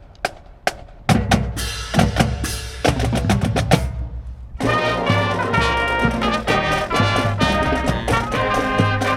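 A school band playing: a few sharp snare drum hits, then drums and pitched band instruments come in about a second in, and about halfway the full band enters with held horn chords over the drums.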